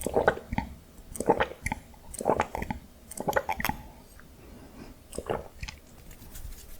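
Close-miked chewing of honey mustard cream dakgangjeong (glazed Korean fried chicken), with a burst of chewing about once a second that trails off after about four seconds, followed by one last burst.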